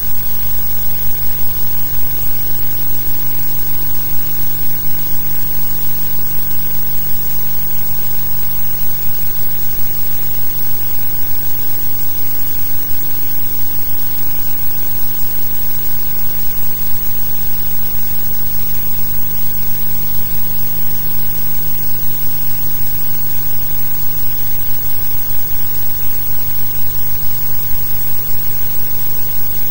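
Steady hiss and hum with no distinct events, the blank-track noise of a silent archive newsreel transfer.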